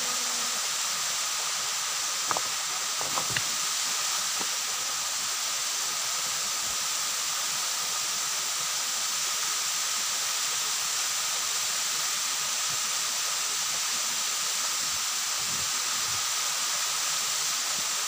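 Waterfall pouring down a rock face into a pool: a steady rushing hiss, with a few sharp clicks about two to three seconds in.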